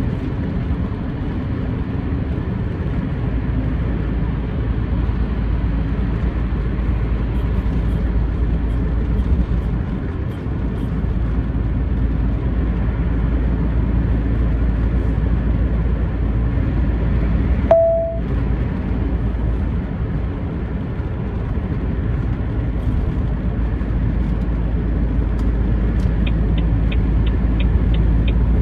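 Steady low drone of a truck's engine and tyres heard from inside the cab while cruising on a dual carriageway. A short single beep sounds about two-thirds of the way through, and a quick run of light ticks comes near the end.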